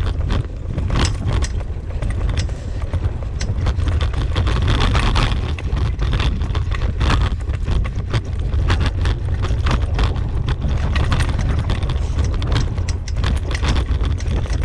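Dog-drawn rig rolling over a bumpy dirt trail behind a team of huskies: a steady low rumble of wind and wheels with frequent irregular rattles and clicks.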